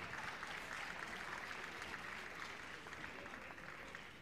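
Audience applauding, a dense patter of clapping that slowly dies down.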